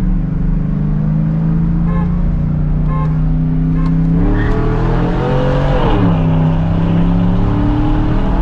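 GMC Sierra's 5.3-litre V8 breathing through a Carven TR muffler with the resonator deleted, heard from inside the cab. The exhaust note holds steady, then climbs as the truck accelerates about four seconds in, drops at an upshift near six seconds, and settles into a steady drone.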